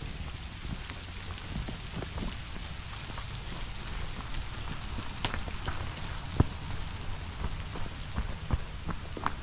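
Steady hiss of rain falling, over a low rumble, with scattered footsteps on wet, muddy ground.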